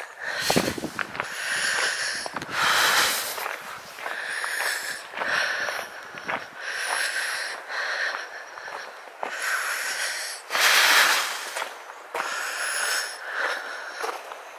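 A hiker breathing hard close to the microphone, about one breath a second, with two louder breaths about three seconds in and near eleven seconds.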